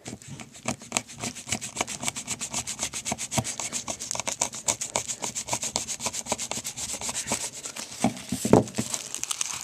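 Rapid, even back-and-forth scraping strokes, several a second, as a mailed package is worked open by hand. One stroke about eight and a half seconds in is louder and deeper.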